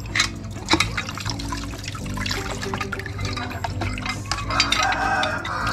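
Zinc (zincate) solution poured from a plastic cup over aluminium enclosures and splashing and dripping into a basin, with a few sharp clicks of the wire-hung metal parts being handled.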